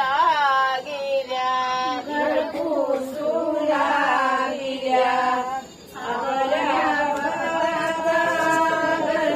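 Women singing a traditional devotional song together, in long held and sliding notes, with a brief pause a little after halfway.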